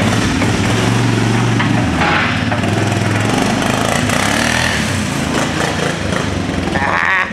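Small quad ATV engine running steadily as the quad is ridden off.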